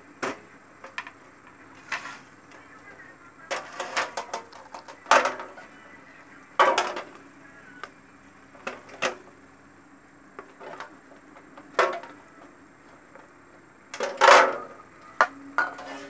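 Irregular knocks, clicks and short clatters of refrigerator parts being handled: the plastic housing and the flat evaporator plate are moved about and set down on a tiled floor. The loudest clatter comes near the end.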